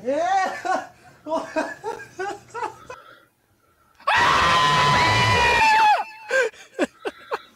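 A girl screams in fright: one loud, high scream held for about a second and a half, starting about four seconds in and ending in a falling cry. Short, rising voice sounds come before it, and brief cries follow.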